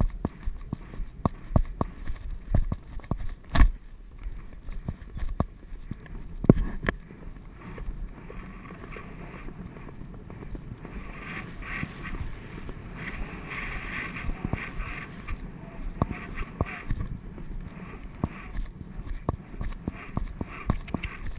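A horse cantering on turf, heard from the saddle: hoofbeats thud in a steady stride rhythm and jolt the mounted camera, under wind rushing over the microphone. Two harder knocks come in the first seven seconds.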